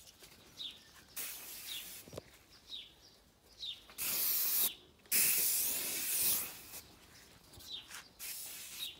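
Aerosol mosquito repellent sprayed from a can: a short hiss about a second in, then two longer hisses from about four seconds in.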